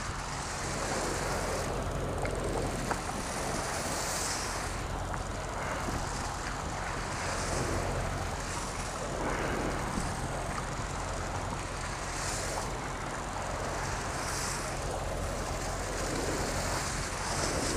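Boat engine running steadily, with wind and water noise over it.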